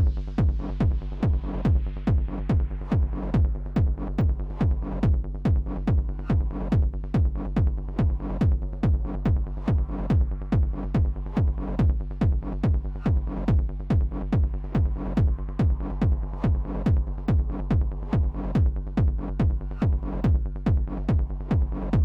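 Hardgroove techno loop playing back from Ableton Live: a steady kick on every beat over a sustained low bassline, with a high filtered texture that thins out and opens up again.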